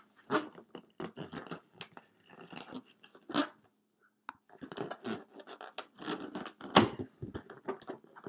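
Hands stretching and twisting the neck of an inflated latex balloon to tie it in a knot: irregular short rubbing noises of the rubber, with one louder one about seven seconds in.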